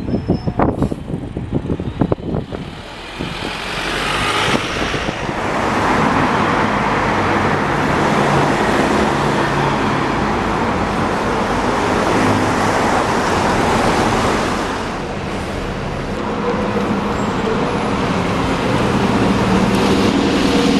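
City street traffic with double-decker buses passing close by: engine hum and tyre noise, with gusts of wind on the microphone in the first couple of seconds and a bus engine growing louder near the end.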